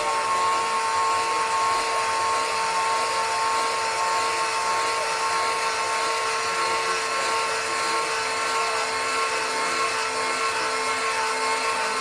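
High-speed electric motor of a power tool running steadily with a constant whine and no change in load.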